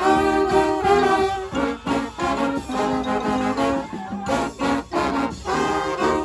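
Live brass band playing, the horns holding loud chords over sharp, regular percussive hits.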